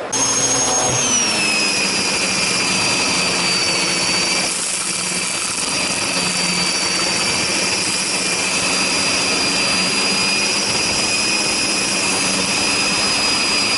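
Numatic Henry Pet Care canister vacuum running steadily, its motor giving a high whine that drops in pitch about a second in and then holds.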